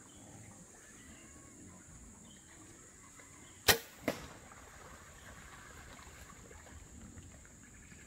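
Compound bow shot: a loud sharp snap as the string is released, then a second, quieter crack about half a second later as the arrow strikes.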